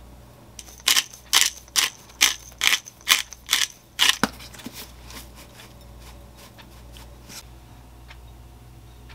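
Seasoning being dispensed from a hand-held spice dispenser over a bowl of food: about eight quick rasping strokes over some three seconds, followed by a few faint clicks.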